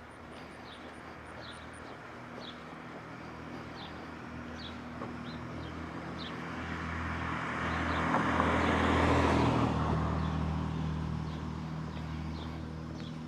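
A car passing, building slowly to its loudest about nine seconds in and then fading away. Under it a bird gives short chirps about once a second.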